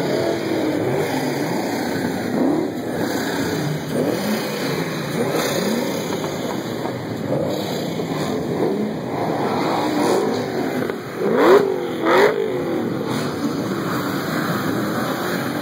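A crowd of Shelby Mustang V8s revving together, many overlapping engines rising and falling in pitch. A nearby one blips hard twice in quick succession about three-quarters of the way through.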